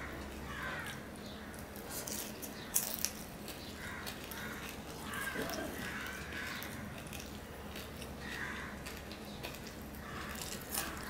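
Close-up chewing and mouth sounds of a person eating rice by hand, soft and wet, with a couple of sharp crunchy clicks about three seconds in.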